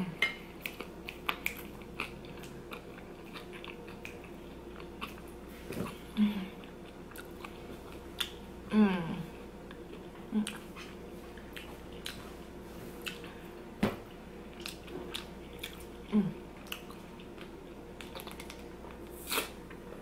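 Close-up chewing and wet mouth sounds of a person eating gravy-covered fries: a run of small clicks and smacks, with a few brief voice sounds in between.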